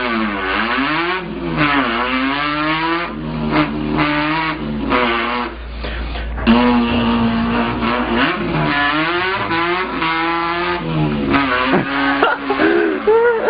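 A man imitating a car engine with his mouth, the revving pitch climbing, breaking off and climbing again several times like gear changes, with one steady held note about halfway through.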